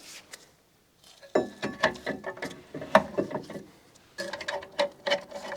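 Rapid metallic clicking and rattling in two runs, the first starting about a second in and the second just after four seconds, like a ratcheting mechanism being worked.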